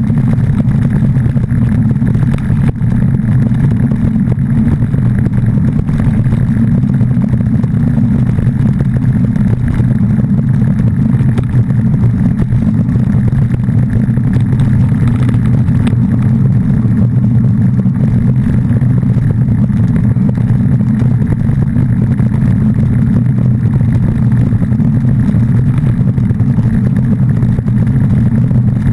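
Continuous loud low rumble of travel noise, wind and road roar on a moving camera, steady with no change in pitch or level.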